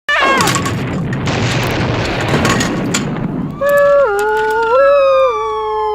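Opening sound effects: a quick falling zap, a rush of noise like a boom, then a held electronic tone that steps up and down in pitch and slides down at the end.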